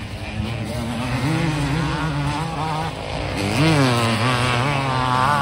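A pack of motocross bikes racing away from the start, their engines revving up and down as they pull away through the gears. About three and a half seconds in, one engine note rises sharply and falls again.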